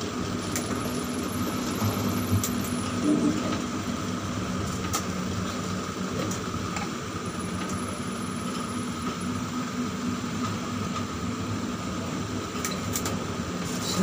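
Steady machinery hum inside a tower crane's operator cab while the crane slews, with a faint high whine that comes and goes twice.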